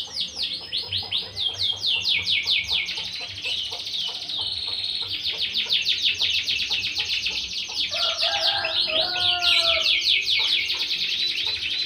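Domestic canary singing a long, unbroken song of fast high trills and rolls, one run after another. A separate lower-pitched series of notes joins from about eight seconds in for a couple of seconds.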